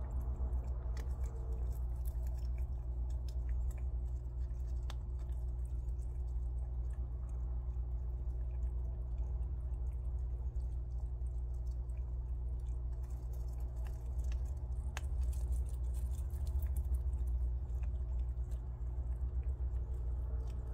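Two prairie dogs gnawing and chewing peanuts in the shell, heard as many small scattered crunches and clicks. A steady low hum sits underneath.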